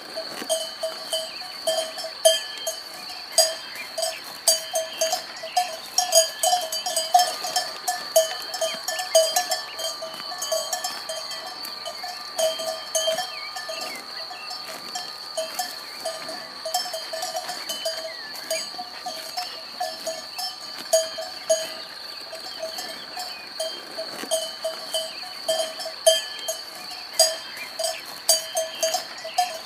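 Bells on grazing cattle clanking irregularly, many quick ringing strikes that bunch up and thin out, over a steady high-pitched tone.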